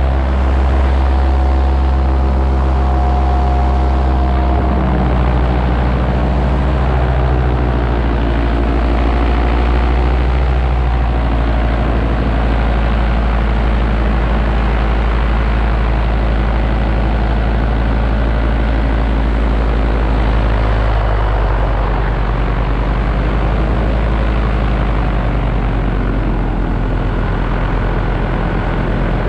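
Paramotor engine and propeller running steadily in flight. The engine note shifts slightly in pitch a few times.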